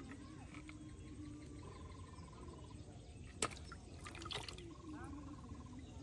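Frogs calling: two short pulsed trills, one about two seconds in and another near the end, over a lower pulsing call. A sharp click about three and a half seconds in is the loudest sound, followed by a few lighter knocks.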